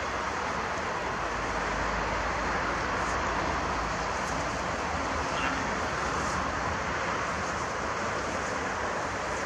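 Steady outdoor rushing noise with a low rumble underneath, even throughout and with no distinct events.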